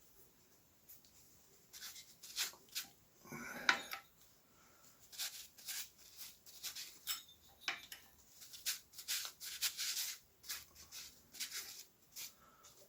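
Sanding paper rubbing against an engine valve and its seat as the valve is turned by hand to clean off loose carbon, in short irregular scraping strokes. One longer, squeakier scrape comes about three and a half seconds in.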